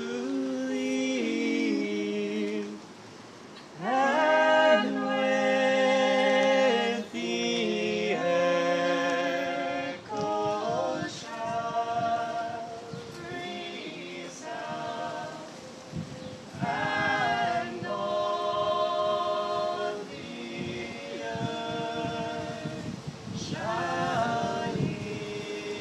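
A cappella vocal trio, two men and a woman, singing in harmony from printed scores, in phrases broken by short pauses.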